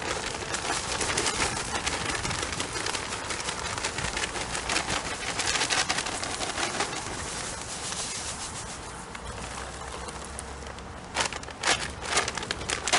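Granular deer mineral pouring from a bag in a stream onto loose soil: a steady hiss that fades out after about eight seconds. A few sharp crackles of the bag being handled come near the end.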